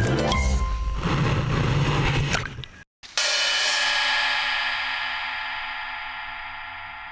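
Background music with drums ends about three seconds in. After a brief silence, one sustained chord rings out and slowly fades away.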